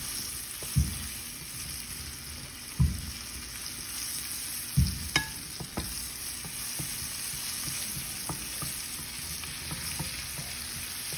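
Garlic, curry powder and sliced hot pepper sizzling in hot oil in a frying pan, a steady frying hiss, while a spoon stirs them and knocks dully against the pan a few times.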